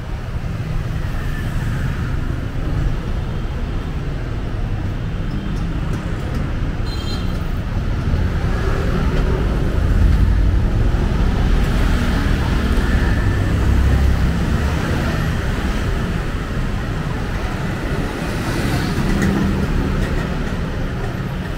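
City street traffic: cars and other motor vehicles running past on a road, a steady low rumble that swells louder about halfway through as traffic passes close by.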